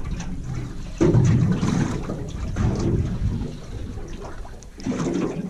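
Water sloshing and lapping against the hull of a small boat at anchor, louder for a couple of seconds about a second in.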